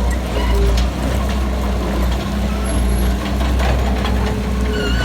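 Diesel engines of heavy earthmoving machinery running steadily with a deep low rumble, with scattered clanks and a few faint whines over it.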